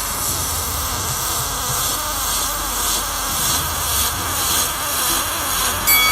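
MIG welding arc on aluminum with 4043 filler wire: a loud, steady hiss.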